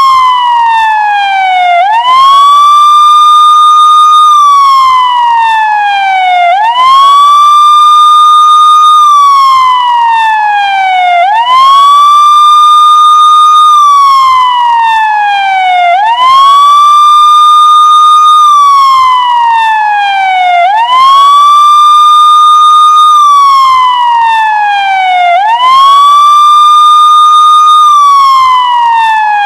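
Police car siren sounding a loud, repeating wail: the pitch sweeps up quickly, holds high for about two seconds, then slides slowly down, the cycle repeating about every four and a half seconds.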